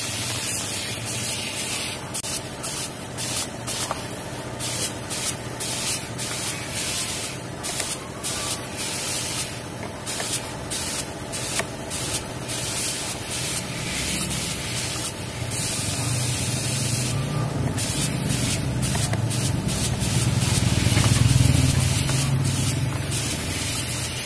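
Compressed-air gravity-feed spray gun hissing as it sprays automotive paint onto a car's bumper panel. The trigger is pulled and released in many short passes. A low hum grows louder in the second half.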